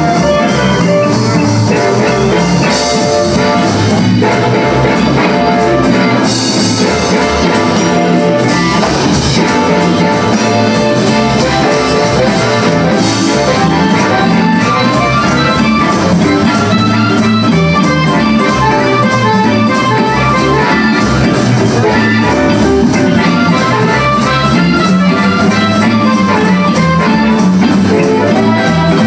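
Live blues band playing an instrumental passage: an amplified harmonica, cupped to a microphone, solos over drums and organ.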